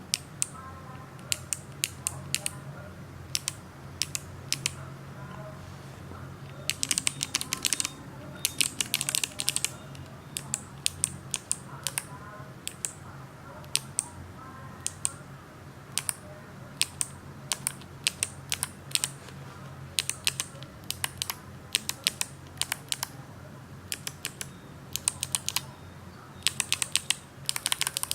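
Kailh BOX clicky switches under GMK keycaps pressed without bottoming out: sharp, crisp clicks, some single and some in quick runs of keystrokes.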